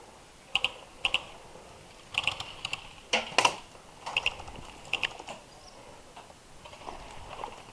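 Airsoft guns firing single shots: about a dozen short, sharp snaps at irregular intervals, some in quick pairs.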